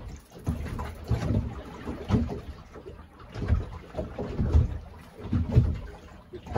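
Wind buffeting the microphone in uneven gusts, with sea water lapping around a small open boat.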